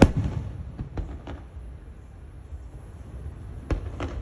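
Fireworks going off: a sharp bang right at the start, a few fainter pops about a second in, then a quieter stretch before two more pops near the end.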